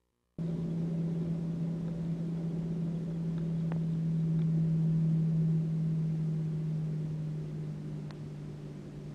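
Boeing 737 jet engines heard from inside the cabin while the plane taxis: a steady drone with a strong low hum. It starts abruptly after a moment of silence, swells a little toward the middle, then eases and drops slightly in pitch near the end.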